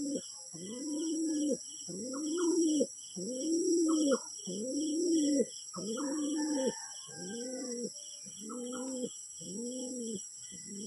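Domestic pigeon cooing over and over, about one coo a second, each coo rising and then falling in pitch. A faint, rapid high-pitched pulsing runs steadily behind it.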